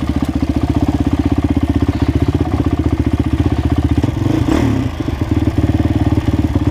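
Enduro dirt bike's single-cylinder engine running at low revs with an even, rapid pulsing beat, the bike held in a low gear on a descent. A brief clatter about four and a half seconds in.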